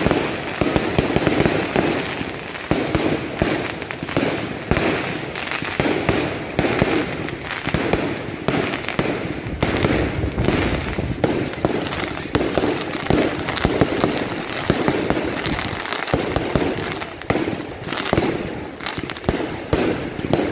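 Aerial fireworks display: a rapid, continuous run of shell bursts and crackling, many bangs a second, with a brief lull about sixteen seconds in.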